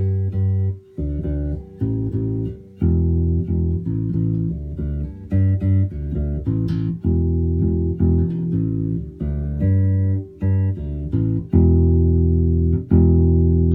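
Electric bass guitar played through a bass amplifier: a run of separate plucked notes, with a couple of longer held notes near the end, sounding out the bass's pickup.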